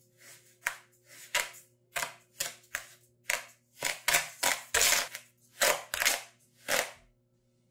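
Metal spoon stirring granulated sugar and agar powder in a stainless steel pot: a run of scraping, swishing strokes, about two a second, that stops about seven seconds in.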